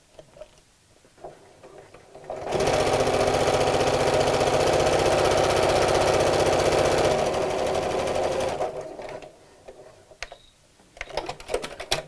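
Janome Memory Craft computerized sewing machine stitching a top-stitch seam along the fold beside a zip. It starts about two and a half seconds in, runs at a steady speed for about four seconds, then slows and stops at around nine seconds. Light handling clicks come before and after.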